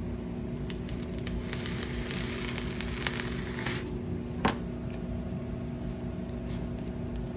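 An X-Acto knife cutting a notch along an edge: a scratchy scraping through the middle stretch and a sharp click about four and a half seconds in, over a steady low hum.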